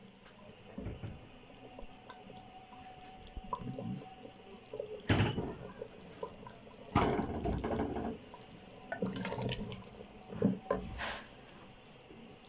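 Mutton and turnip curry simmering in an open clay pot, bubbling and spluttering in irregular bursts, the loudest about five and seven seconds in.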